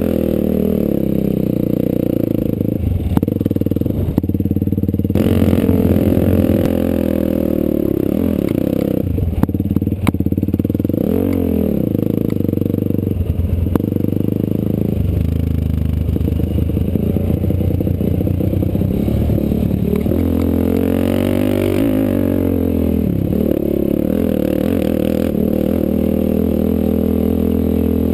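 Off-road vehicle engine running under way on a dirt trail, its pitch rising and falling with the throttle several times, with occasional knocks and clatter.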